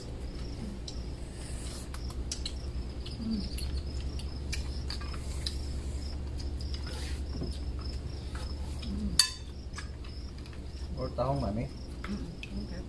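Crickets chirping in a steady pulsing trill, over scattered light clinks of cutlery and plates. There is one sharp click about nine seconds in and a brief voice near the end.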